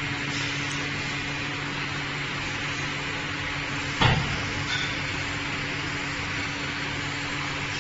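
Glass cutting machine running with a steady mechanical hum, with a single knock about four seconds in.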